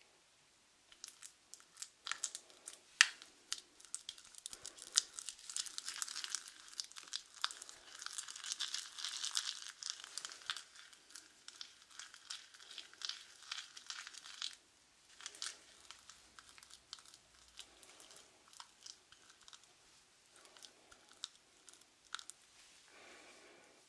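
Crackling, scratchy handling of a small dark bowl and a soft-tipped brush close to the microphone. There are many quick clicks, densest and loudest for several seconds in the middle, then sparser taps near the end.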